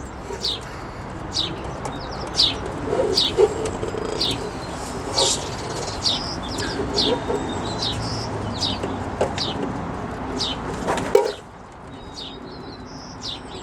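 Birds chirping, short high falling notes repeating about once or twice a second, over a steady rushing background noise that drops away about eleven seconds in.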